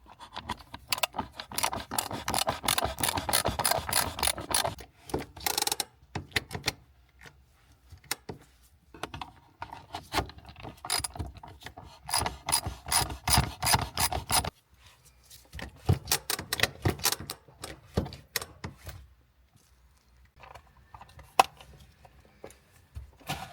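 Ratchet wrench being cranked in several bursts of rapid clicking with short pauses between, tightening the parking-brake adjuster.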